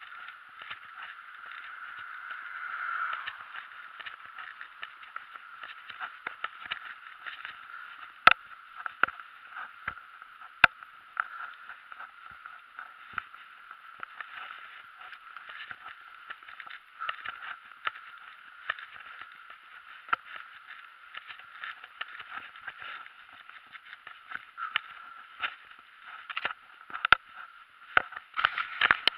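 Mountain bike rolling along a paved road, heard through a small camera microphone: a steady thin hiss of tyre and wind noise with frequent sharp clicks and rattles from the bike, the loudest about 8 and 11 seconds in and more coming near the end.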